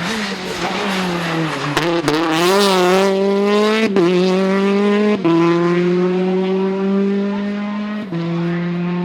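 Rally car engine pulling hard under load, its pitch wavering and then climbing steadily. It breaks sharply at gear changes about 4, 5 and 8 seconds in, with a short rush of hiss early on.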